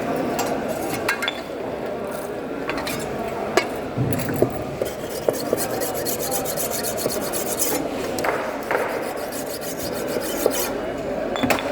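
A knife scraping and cutting along a fish, with repeated rasping strokes that come quickly near the middle, and a few sharp knocks.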